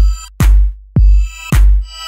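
Electronic background music: a heavy, deep kick drum about twice a second under steady synth chords.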